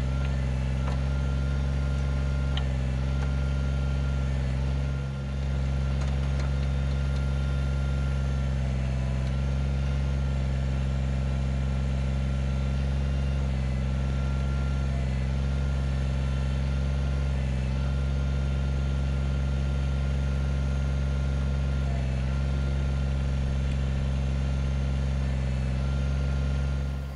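Kubota BX25D compact tractor's three-cylinder diesel engine running steadily while the backhoe works out stumps, with a brief dip in level about five seconds in.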